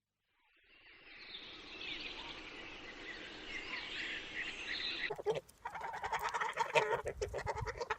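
Birds singing, many chirps overlapping as the sound fades in. A little past five seconds it changes abruptly to a rapid, rhythmic run of calls, about eight a second.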